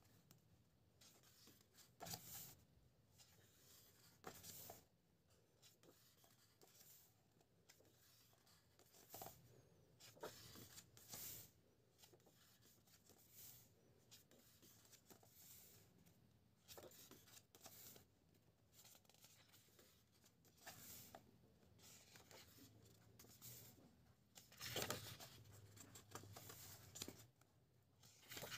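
Faint rustling and swishing of paper as the pages of a thick illustration book are turned one after another, a brief sweep every second or few, the loudest about 25 seconds in.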